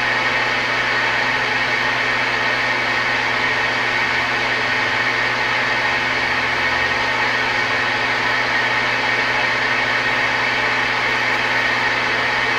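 Steady static hiss from a Tram Titan II CB base radio's speaker on an open channel with no one transmitting, with a low steady hum under it.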